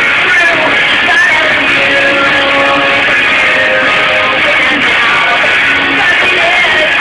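Loud rock music with guitar.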